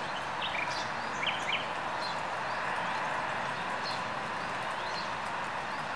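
Steady hiss of rain with songbirds calling over it: a cluster of short, high chirps in the first second and a half, then a brief call about once a second.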